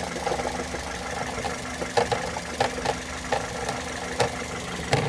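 Car engine idling, with irregular sharp clicks and knocks from a loose cover on the engine that rattles with the engine's vibration. The cover is cracked at its base and missing its retaining bolt.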